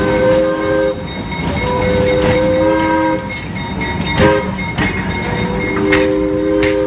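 Diesel locomotive's three-chime air horn sounding three blasts, the first two long and the last shorter, over the rumble of the train rolling slowly past. A few sharp metallic clanks from the cars come in between, the loudest about four seconds in.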